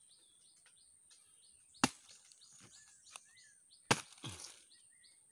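Two sharp chops of a knife blade cutting into a young jackfruit, about two seconds apart, with a bird calling repeatedly in the background.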